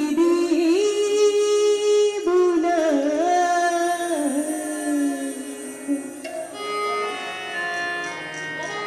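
A woman singing long, held notes that glide up and down, with steady held instrumental notes beneath. Her voice stops about six seconds in and the held instrumental notes carry on.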